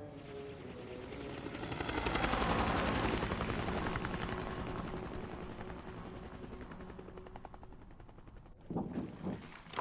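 Long stretch of rapid machine-gun fire from attack helicopters. It swells to its loudest a few seconds in, then slowly fades, and a few separate sharp impacts come near the end.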